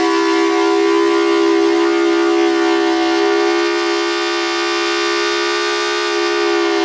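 Outdoor tornado warning siren sounding a steady wail on two close tones held at one pitch.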